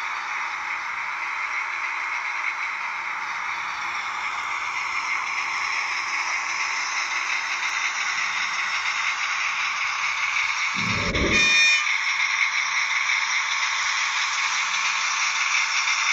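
Model V142 diesel locomotive running along the layout track: a steady whirring hiss of its small electric motor and wheels on the rails, growing louder as it draws close. Just past the middle comes a short low thump with a brief buzzy high tone.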